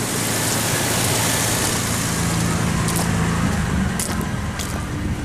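2001 Ford Ranger's 4.0-litre V6 idling steadily, running much smoother now that a disconnected spark plug wire has been replaced, though not perfectly. A few light clicks come in the second half.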